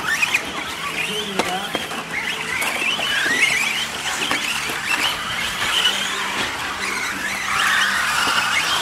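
Several 1/10-scale electric radio-control short-course trucks racing on dirt, their motors whining up and down in pitch as they accelerate and slow, with a few sharp knocks from the trucks.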